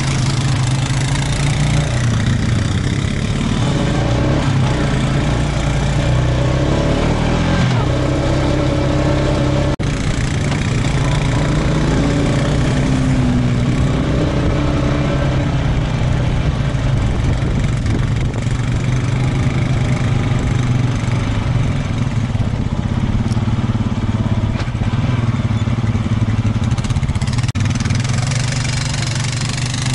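Honda ATV's single-cylinder four-stroke engine running steadily while riding, with a few small rises and falls in engine speed and a constant rushing noise over it.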